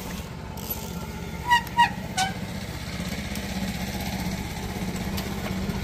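An engine running steadily with a low, even drone. About a second and a half in come three short, loud, high squeaks, the last one sliding down in pitch.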